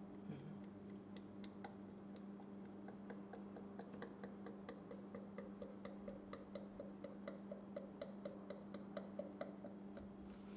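Tractor hydraulic and transmission fluid glugging down a long funnel into a transmission fill port: a fast, even run of small gurgling blips, about four or five a second, growing stronger and then thinning out near the end. A faint steady low hum runs underneath.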